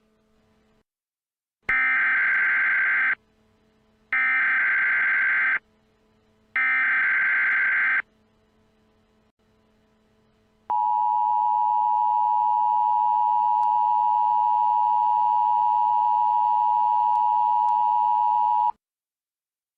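Emergency Alert System tones: three short bursts of digital SAME header data, about a second and a half each, then after a short gap the steady two-tone attention signal, held for about eight seconds and cutting off suddenly.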